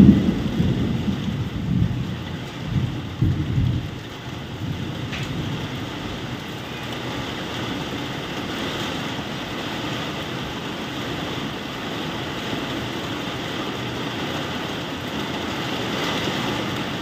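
Thunder rumbling in several swells through the first four seconds, over the steady hiss of heavy rain.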